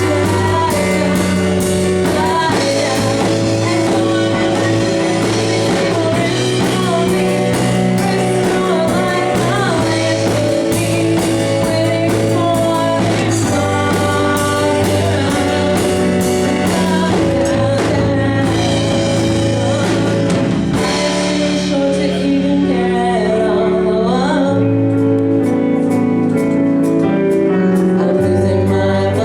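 A woman singing a song live with keyboard accompaniment and held bass notes underneath; the high-end accompaniment drops back for a few seconds about three quarters of the way through.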